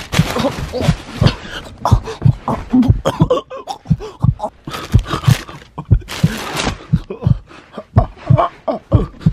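Frantic rummaging by hand: repeated knocks and handling thumps as objects are pushed aside and a hand pats across a carpeted floor, broken by a few short bursts of rustling and huffing breath.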